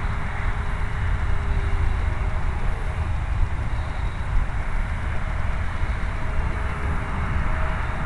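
Wind rumbling and buffeting on the microphone, over the faint, wavering whine of a distant foamboard RC plane's brushless electric motor and propeller.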